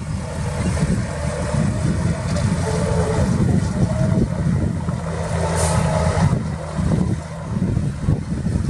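Heavy diesel earthmoving machinery running steadily with a deep engine rumble, from a bulldozer or dump truck working soil, with a brief hiss-like burst about six seconds in.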